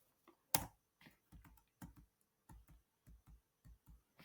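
Faint typing on a computer keyboard: one sharper keystroke about half a second in, then a run of soft, irregular key taps.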